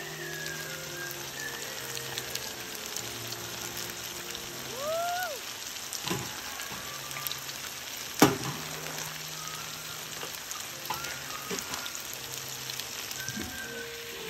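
Chicken pieces frying in a pan with onion and green bell pepper: a steady sizzle with a few scattered knocks, the loudest a single sharp knock about eight seconds in. Quiet background music plays underneath.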